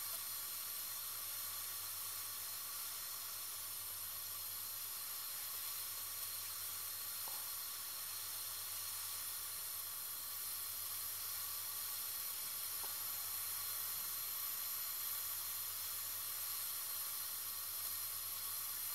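Personal facial steam inhaler running, giving off a steady, even hiss of steam as it is breathed through the mask.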